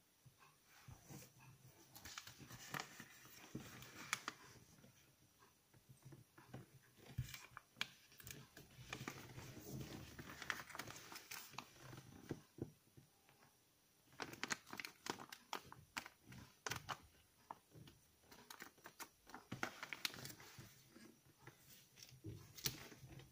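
A sheet of paper rustling and crinkling as it is folded and creased by hand, in irregular bursts of soft crackles and sharp clicks with short pauses.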